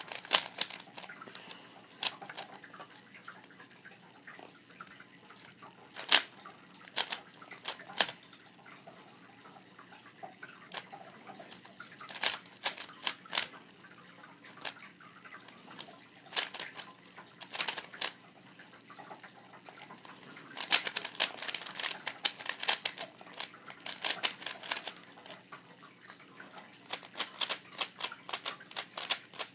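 Plastic 3x3 speed cube being turned by hand: its layers clack in separate turns and quick flurries, with the fastest runs of clicks about two-thirds of the way through and again near the end.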